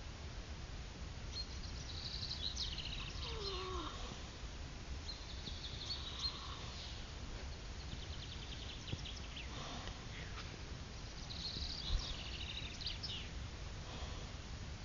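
A sleeping pet snoring: four thin, high, squeaky breath sounds a few seconds apart, over a steady low hum.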